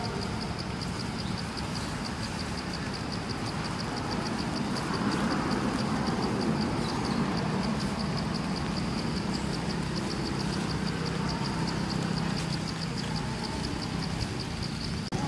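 A steady, engine-like low rumble, with an insect calling above it in a fast, even train of high chirps.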